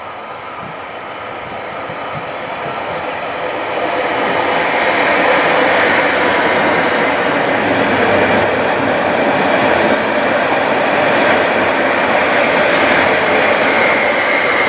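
Koleje Mazowieckie Stadler Flirt electric multiple unit running into the station along the platform. Its rolling noise builds over the first few seconds as it nears, then holds steady as the carriages pass, with a high whine growing stronger toward the end.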